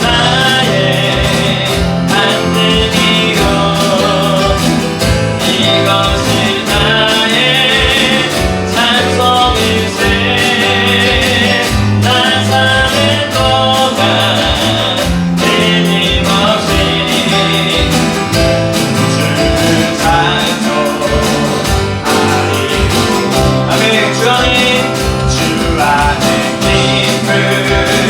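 Live contemporary worship band playing a hymn or praise song with singing: strummed acoustic guitar, keyboard, bass guitar and electronic drums keeping a steady beat.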